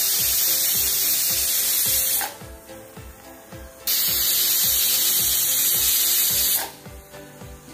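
Pressure cooker whistle: two loud hissing blasts of steam from the weight valve, each a little over two seconds long, about a second and a half apart, the sign that the cooker is up to pressure and counting whistles to time the rice. Background music with a steady beat runs underneath.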